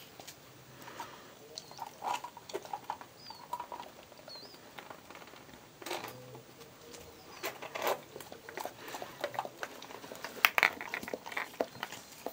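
A springer spaniel × border collie cross nosing, mouthing and pawing at a whole egg on concrete: irregular small clicks and taps from claws, teeth and eggshell, busier and louder in the second half.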